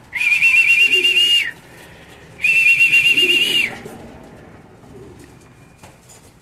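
A trilling pea whistle blown in two blasts of about a second and a half each, about a second apart, calling in a racing pigeon that is arriving at the loft. Faint pigeon cooing underneath.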